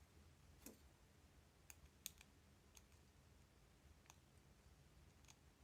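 Faint, scattered light clicks from small combination-padlock parts being handled and fitted with a pick, about seven in all, over near silence.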